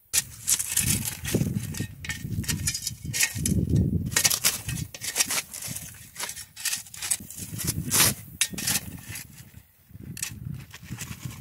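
Steel shovels scraping and chopping into rocky, sandy soil, with stones grating and clinking against the blades in an irregular run of scrapes and crunches.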